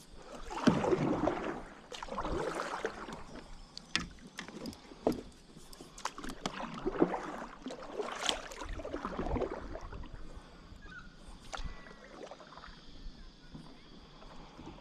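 Kayak paddle strokes dipping and swishing through the water in a run of separate swells, with occasional sharp knocks, easing off after about ten seconds.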